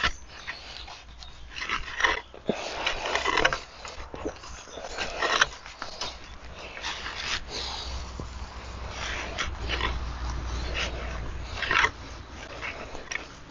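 Hand cultivator fork scraping and scratching through moist compost and dry dead leaves, in irregular strokes with rustling.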